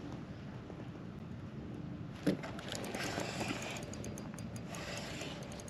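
Spinning reel being cranked, with a light irregular ticking from about two seconds in, over a steady low hiss of wind and water on the microphone. A single knock just after two seconds in.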